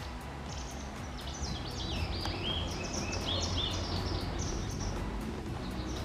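A small songbird sings a fast, varied twittering phrase of high chirps and short glides, lasting about four and a half seconds, over a steady low rumble of background noise.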